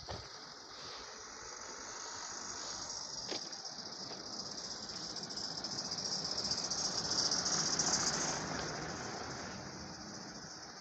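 A car driving past on an asphalt road: its tyre and engine noise swells as it approaches, is loudest about eight seconds in, then fades.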